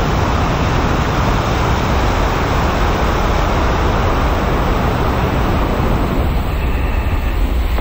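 Five-segment solid rocket booster of NASA's Space Launch System firing on a horizontal test stand: a loud, steady rushing noise, heavy in the deep low end. The top end thins slightly near the end as the roughly two-minute burn nears its close.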